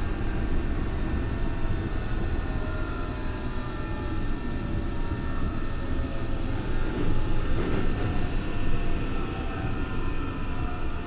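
Tokyo Metro 03 series armature-chopper train running, heard from inside the car: a steady rumble of wheels on track with faint whining tones from the traction equipment, the unit's so-called jet sound.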